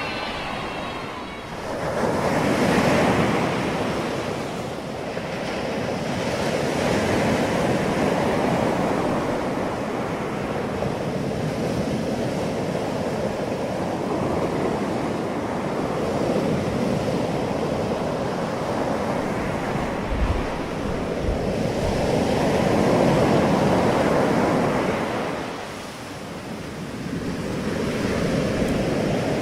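Ocean surf breaking and washing on a sandy beach, a steady rush that swells and ebbs as waves come in, with wind buffeting the microphone now and then.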